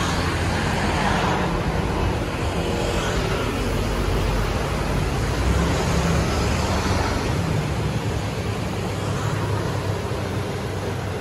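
Steady din of road traffic: a continuous rushing noise over a low rumble.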